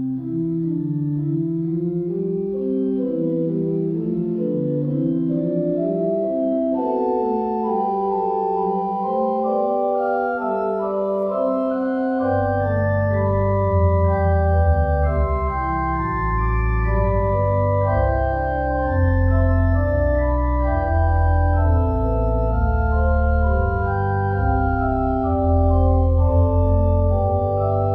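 Organ music playing slow, held chords, with deep bass notes joining about twelve seconds in.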